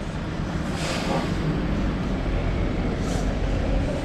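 Large coach bus's diesel engine running close alongside, over steady road and wind noise, with a short hiss about a second in.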